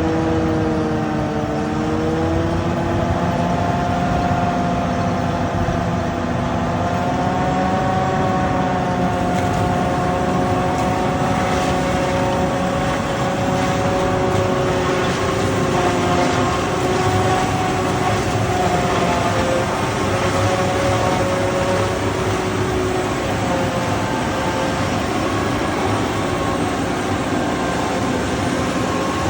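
Hyena 700 corn harvester running steadily: a continuous machine drone with whining tones that drift slowly up and down in pitch.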